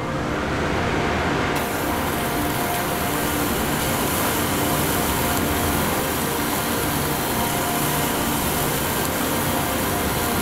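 Rocket blast-off sound effect: a loud, steady rushing noise over a low rumble, turning hissier about a second and a half in.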